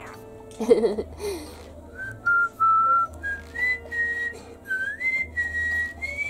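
Cockatiel whistling a tune: a string of short, clear notes stepping up and down in pitch, with a brief low warbling sound about a second in.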